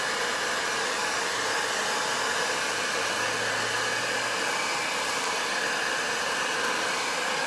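Handheld hair dryer running steadily, blowing hot air onto plastic shrink wrap to shrink it tight around a gift basket.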